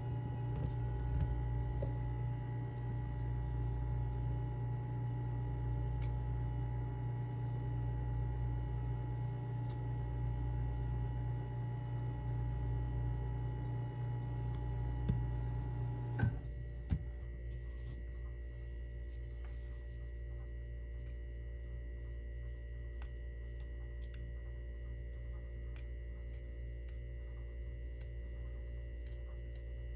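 Steady low electrical hum with a few fainter higher tones, the lowest part pulsing gently in the first half. About halfway through, a click is followed by part of the hum cutting out. After that come scattered faint light ticks.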